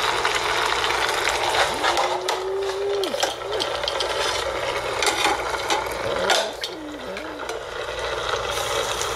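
Food frying in hot oil in a pan: a steady, dense sizzle with scattered crackles.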